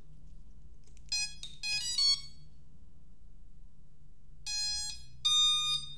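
FPV drone ESC start-up beeps at power-up: a quick run of short rising tones, then a few seconds later two longer beeps, the second higher. The first run comes from the ESC and the second pair from the flight controller; hearing both means the ESC and flight controller are connected and working.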